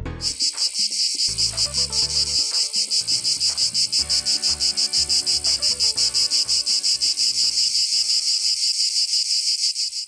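A chorus of Brood X periodical cicadas calling: a loud, high buzz that pulses steadily at about seven beats a second.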